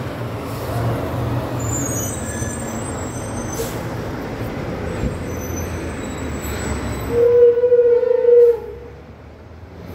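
Heavy truck passing on the street with a steady engine and road rumble, then a horn sounds one steady blast of about a second and a half, the loudest sound here.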